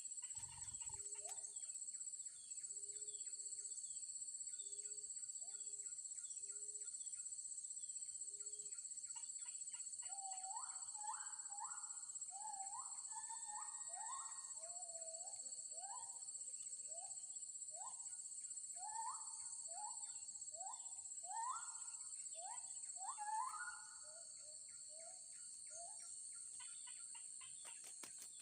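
Wild birds calling over a steady high-pitched insect drone. A short low note repeats about once a second for the first several seconds. Then comes a long run of short, rising whistled notes, with thin high chips scattered throughout.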